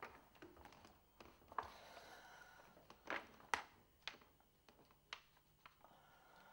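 A woman crying quietly: faint, irregular sobbing breaths and sniffs, with a few sharper catches of breath about halfway through.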